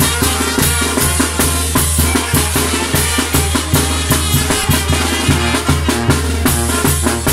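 Oaxacan banda de viento playing a chilena: snare drum, bass drum and cymbal keep a steady beat in front, with sousaphone and trombones underneath.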